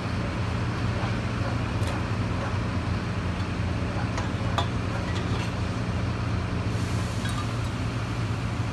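Steady low engine hum, with scattered light knocks and clinks of brick rubble being handled.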